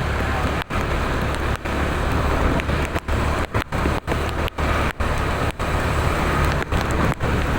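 Road traffic noise: a dense hiss over a low rumble, with no horn sounding, cutting out briefly about once or twice a second.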